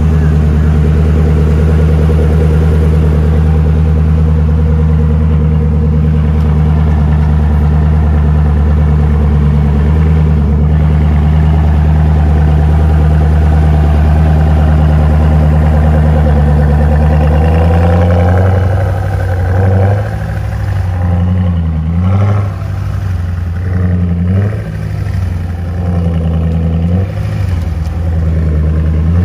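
Koenigsegg Agera RS's twin-turbo V8 running at a steady idle, then from about eighteen seconds in the engine note turns uneven, rising and falling in pitch and level several times.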